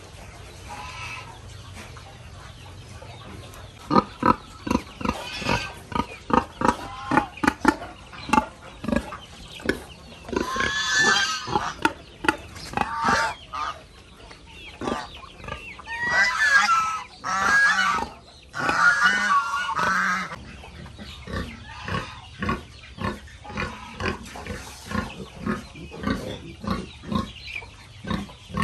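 Pigs grunting in a quick run of short sounds, a few a second, with a few louder, longer squealing calls around the middle.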